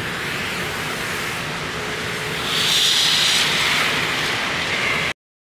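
Four hand-held smoke grenades hissing steadily as they burn and pour out coloured smoke. The hiss grows louder about halfway through, then cuts off suddenly near the end.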